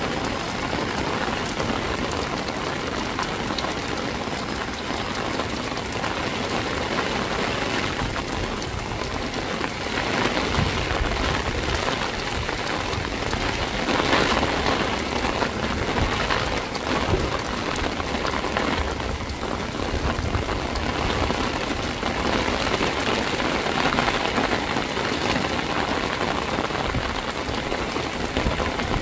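Heavy rain pelting a concrete rooftop, with runoff pouring off a roof edge and splashing down: a dense, steady hiss that swells slightly around the middle.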